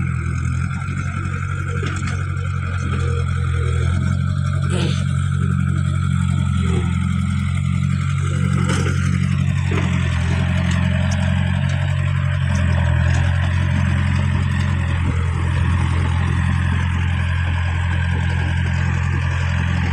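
Caterpillar E70B hydraulic excavator's diesel engine running steadily with a deep, even drone, with a few short knocks around five and nine seconds in.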